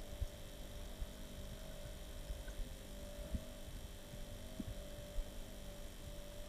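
Steady electrical hum with faint constant high tones, the background noise of a computer recording setup, broken by a few soft low thumps.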